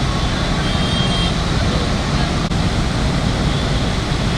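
Steady loud rushing noise of floodwater pouring through a river barrage's open gates, mixed with passing road traffic.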